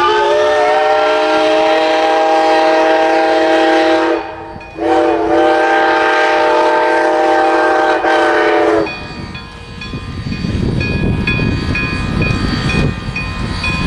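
Steam locomotive chime whistle sounding two long blasts, the first ending about four seconds in and the second lasting about four seconds, the two-long signal that the train is about to move off. After the whistle the locomotive bell rings about twice a second over the low rumble of the train getting under way.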